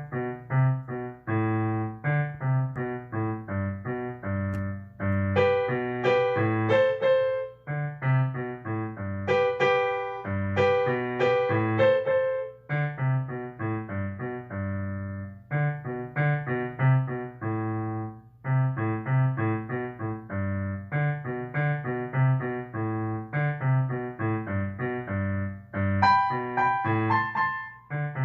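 Piano played by a young student: a simple melody over repeated low bass notes, with a couple of brief breaks between phrases.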